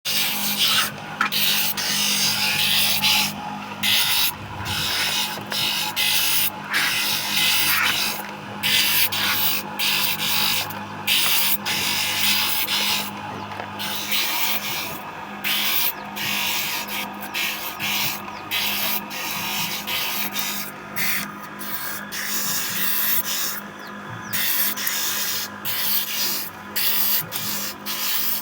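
Rasping strokes on bamboo in quick, irregular runs, over a steady low hum.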